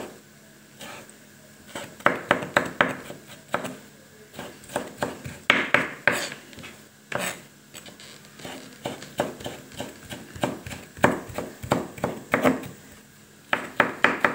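Kitchen knife chopping diced tomato on a wooden cutting board: quick knocks of the blade on the board in several runs, with short pauses between them.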